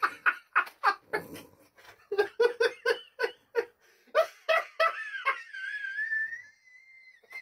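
A man laughing in quick, repeated bursts. The laughter trails off into a long, high, wavering sound near the end.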